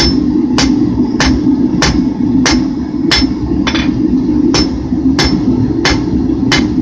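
Hand hammer striking hot 5160 steel on an anvil in a steady rhythm, about one and a half blows a second with a brief pause midway, drawing out the taper for a knife's tip. A steady low rumble runs underneath.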